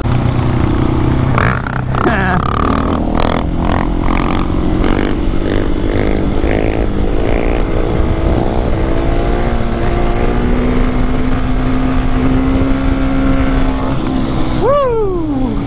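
Husqvarna 701 Supermoto's big single-cylinder engine running at road speed under a steady haze of wind noise. Its note shifts with the throttle, holds steady for a few seconds, then falls sharply about a second before the end as the throttle is closed.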